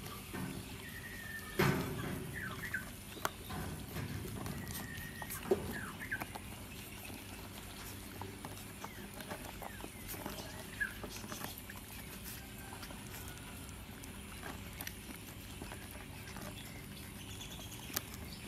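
A litter of Bangkaew puppies lapping supplementary milk from a bowl: a steady scatter of small wet clicks and patters, with a few brief high squeaks in the first few seconds.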